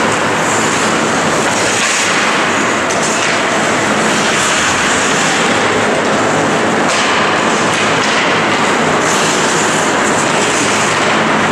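Steady, dense ice rink noise during play: skates scraping and gliding on the ice over a constant low hum, with no clear single event standing out.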